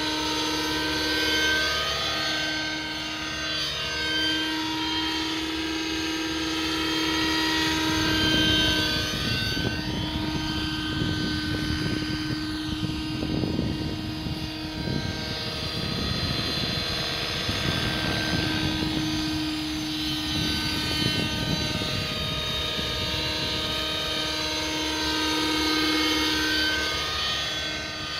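ALIGN 600 nitro radio-controlled helicopter in flight: its glow-fuel two-stroke engine and rotors make a steady whine whose pitch sweeps up and down several times as it passes to and fro.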